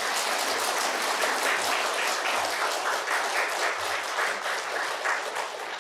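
Congregation applauding: a steady round of many hands clapping that tapers slightly near the end.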